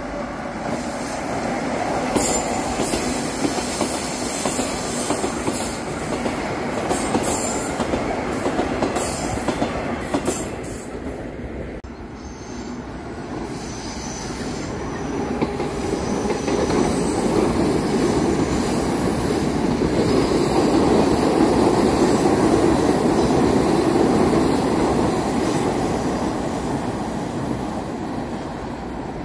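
Two metro trains passing on a curved open-air track. The first goes by with high wheel squeal over its first ten seconds. After a short lull about twelve seconds in, a second train, a Rusich articulated train, rumbles past, loudest about two thirds of the way through.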